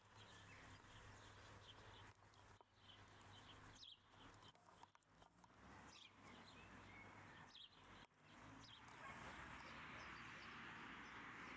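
Near silence: faint outdoor ambience with small birds chirping now and then over a low steady hum, the background hiss growing louder about nine seconds in.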